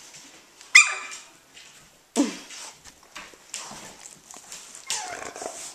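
Eighteen-day-old Australian Shepherd puppies squeaking and whining as they crawl and tussle on a blanket: a short sharp squeak about a second in, a low falling grunt a second later, and a whine near the end, over the scuffling of paws on fabric.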